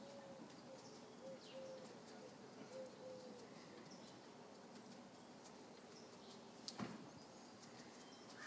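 Near silence, with a dove cooing faintly: a short series of soft, low, arching notes over the first three seconds or so. One brief knock comes about seven seconds in.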